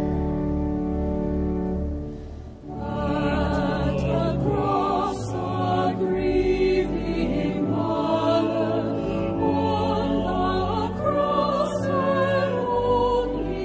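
Organ holding a chord that fades out about two and a half seconds in, then a choir comes in singing a hymn over a sustained accompaniment.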